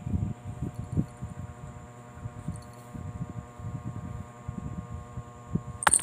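Soft, irregular low rustling and thuds from close handling against the bedding, over a steady background hum, with a sharp knock just before the end as the phone is jostled.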